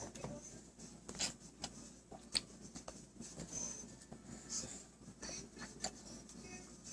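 Faint scattered clicks and small taps in a quiet room, a handful of short sharp ticks spread irregularly through the stretch.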